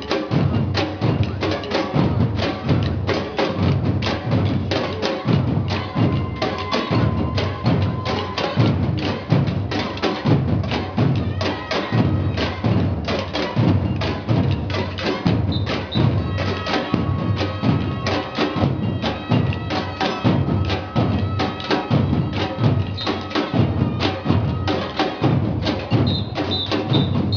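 Maculelê music: wooden sticks clacked together in a fast, steady rhythm over a low drum beat.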